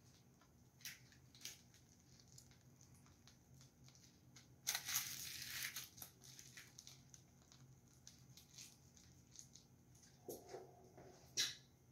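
Faint crinkling and rustling of a plastic piping bag being squeezed and handled while piping whipped cream, with scattered small clicks, a louder rustle of about a second near the middle, and a sharp click near the end.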